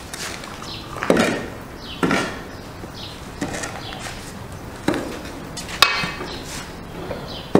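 A series of sharp, hard knocks at an uneven spacing of about one a second, each ringing briefly: hammering or chopping blows from building work.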